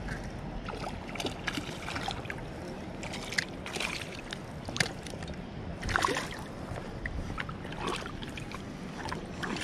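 Creek water splashing and sloshing close by, in many irregular splashes over a steady rush of flowing water.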